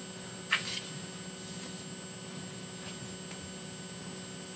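Steady electrical mains hum with faint room noise, and one brief sharp sound about half a second in.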